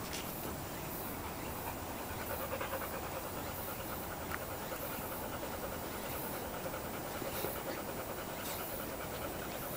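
Golden retriever puppy panting rapidly as it digs in sandy soil, its paws scratching at the dirt; the fast, even rhythm sets in about two seconds in.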